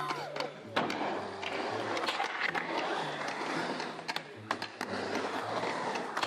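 Skateboard wheels rolling and carving on the concrete surface of a skate bowl, with several sharp clacks of the board and trucks at intervals.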